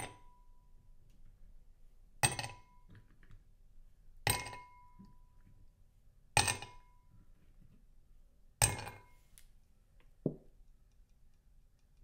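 Five sharp clinks of a hard object being struck, about two seconds apart, each with a short ringing tone, followed near the end by a softer, duller knock.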